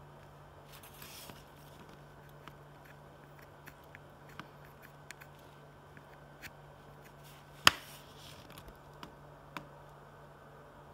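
Scattered light clicks and taps from handling a small circuit board and a soldering iron working on its SOIC8 chip pins, with one sharp, louder click a little after halfway, over a steady low hum.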